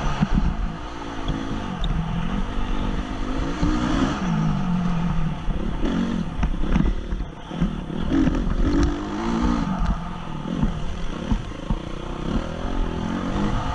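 2014 Honda CRF250 motocross bike's single-cylinder four-stroke engine revving, its pitch rising and falling again and again with the throttle and gear changes, with rumble and scattered knocks from the rough track, heard from a helmet camera.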